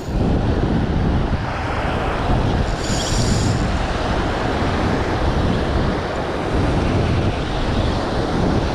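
Wind buffeting the microphone over surf washing around the wader, a loud, steady low rumble, with a brief high whirring sound about three seconds in.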